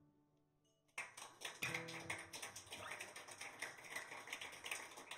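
The final strummed acoustic guitar chord rings out and fades. After a moment of quiet, audience applause breaks out about a second in and carries on.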